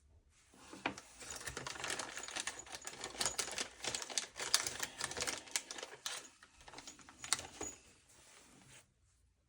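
Small metal screws and parts rattling and clicking as they are rummaged through by hand, a busy irregular clatter with a few sharper clicks, lasting about eight seconds.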